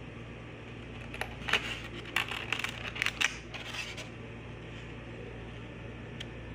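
Polystyrene foam clamshell food container being unlatched and opened: a cluster of sharp clicks and short squeaky crackles of foam on foam over about three seconds, over a steady room hum.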